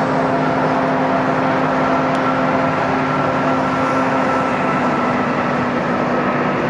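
Airbus A380 on final approach, its four Rolls-Royce Trent 900 engines running steadily at approach power: a constant rushing hum with a few held whining tones.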